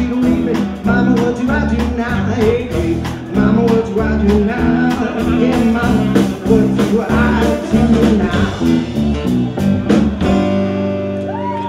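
Live blues-rock band (electric guitar, saxophone, electric bass and drums) playing the closing bars of a song. About ten and a half seconds in the drums stop and the final chord is held and rings out.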